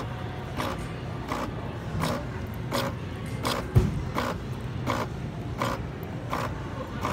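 A Nespresso Lattissima Pro capsule machine running its clean cycle: the pump pulses in an even rhythm, about three pulses every two seconds, over a steady low hum, as it pushes hot water and steam through the milk system to rinse it. There is one sharp thump a little under four seconds in.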